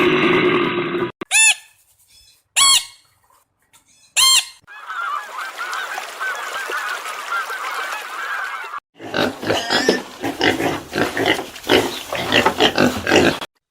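Geese honking: three single honks a second or so apart, then the overlapping chatter of a flock, then a run of rapid harsh honks that stops abruptly near the end.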